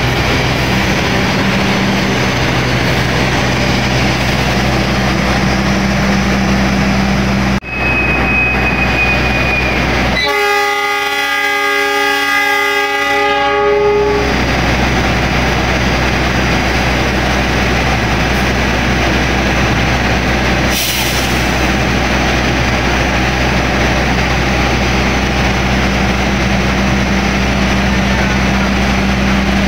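A passenger train's horn sounds one long blast of about four seconds, over the steady low drone of the train's diesel engines: the locomotive and the generator car. A thin high tone is heard for about two seconds just before the horn.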